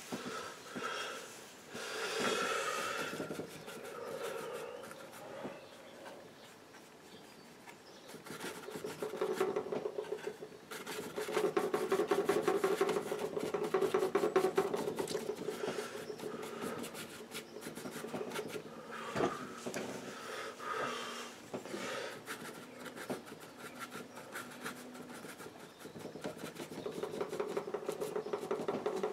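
Paintbrush scrubbing and dabbing oil paint onto a board, a fast run of dry, scratchy rubbing strokes that grows busier about a third of the way in.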